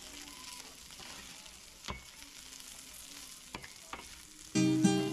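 Sprats, okra and red pepper sizzling in a stainless steel frying pan as a wooden spatula stirs them, with a few sharp knocks of the spatula against the pan. Acoustic guitar music comes in loudly near the end.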